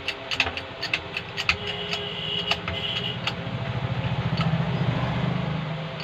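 A 10-ton hydraulic bottle jack in a homemade press is pumped by hand, giving a run of sharp clicks and knocks from the pump handle, with a brief high squeak. In the second half a low buzzing drone swells for about two seconds, then fades.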